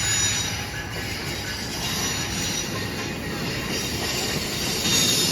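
Passenger train cars rolling past on the rails: a steady rumble of wheels on track, with a faint high wheel squeal.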